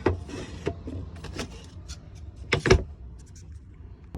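Wooden boards being handled and shifted, giving a series of short knocks and clunks, the loudest double knock about two and a half seconds in.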